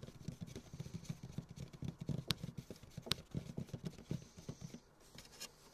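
Close handling noise: a run of soft, irregular knocks and rubbing of hands working an object right at the microphone, with two sharp clicks about two and three seconds in. It settles down near the end.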